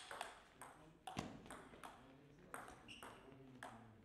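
Table tennis rally: the plastic ball clicking off the rackets and bouncing on the table, a few sharp ticks each second in an uneven back-and-forth.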